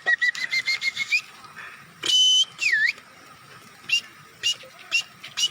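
A person whistling animal and bird-call imitations by mouth. It starts with a rapid trill of short notes that rise slightly in pitch, then comes a long high whistle and a swooping note that dips and rises, then single short chirps about twice a second.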